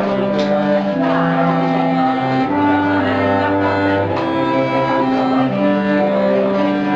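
Live cello and clarinet duet playing a slow tune in long held notes, the cello carrying a low line under the clarinet.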